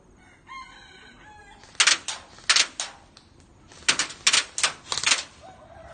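BB gun (airsoft) shots: about ten sharp pops in two quick, irregular bursts, the first about two seconds in, the second near the end.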